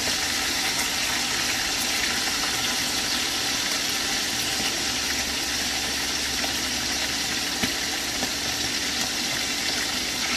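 Chicken breast pieces shallow-frying in hot oil in a nonstick pan, a steady sizzle. There is one sharp click about three-quarters of the way through, a slotted spatula against the pan.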